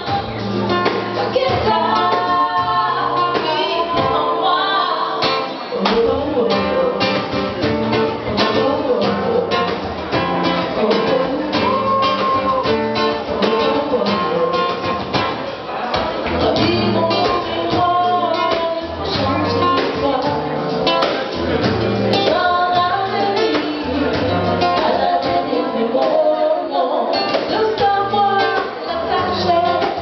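Live acoustic music: women singing over a strummed acoustic guitar with a steady rhythm.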